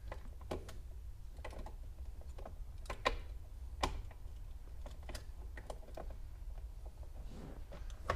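Irregular small clicks and taps as a Ford Mustang SN95 ignition lock cylinder, with the key in the start position, is worked by hand into the steering column housing. The sharpest clicks come about three and four seconds in, over a low steady hum.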